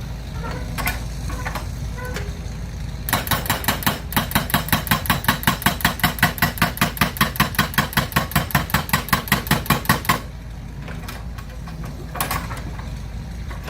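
A rapid, even mechanical clatter of about four or five beats a second starts about three seconds in and cuts off suddenly about ten seconds in, over a steady low hum.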